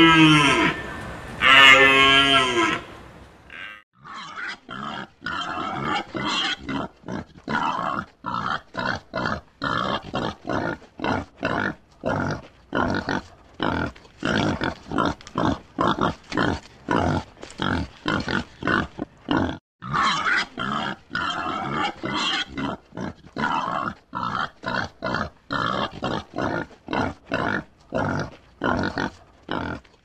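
Two drawn-out, pitched animal calls in the first three seconds, then a common warthog grunting steadily, about two to three short grunts a second.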